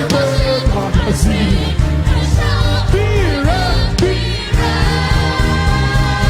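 Live gospel praise band playing loudly with heavy bass and drums, wavering vocal lines gliding over the beat, and a long held note coming in near the end.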